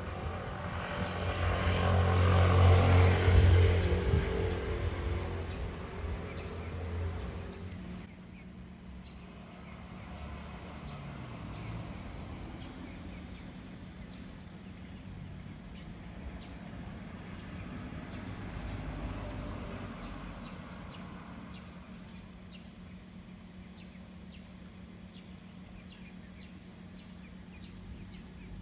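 A passing engine swells to its loudest about three seconds in and fades away within several seconds, followed by a quieter steady low hum with faint scattered ticks.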